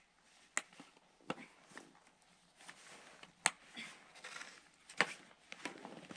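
Ski touring gear being handled: scattered sharp clicks and light knocks at irregular intervals, about five louder than the rest.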